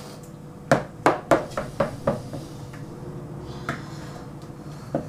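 A utensil tapping and scraping against a plastic mixing bowl while pancake batter is stirred: a quick run of sharp taps about a second in, then two more taps later.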